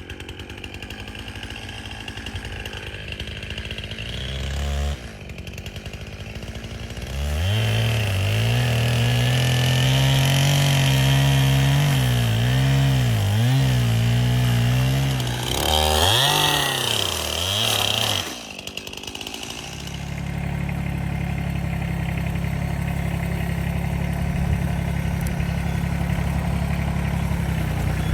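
Small petrol engine on wood-clearing equipment, running throughout. Through the middle its pitch dips and recovers again and again under load. After a brief drop it runs steadily again.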